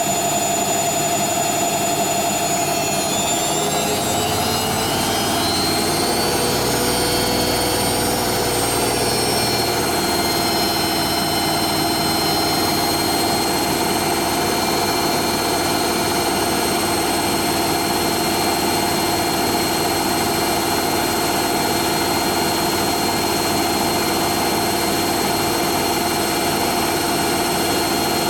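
Hoover Nextra HNL71463D washing machine on its high-speed final spin: a steady motor whine and drum hum. The pitch shifts during the first ten seconds, then holds steady.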